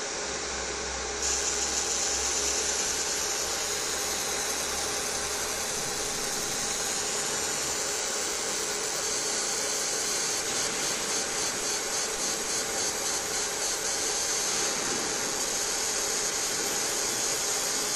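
Fiber laser marking machine at work: a steady fan hiss, joined about a second in by a high whine as marking starts, which pulses rapidly for a few seconds in the middle.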